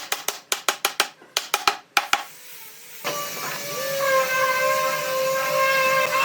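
A quick run of sharp taps, about six a second, for two seconds. About three seconds in, a workshop power tool starts and runs with a steady whine.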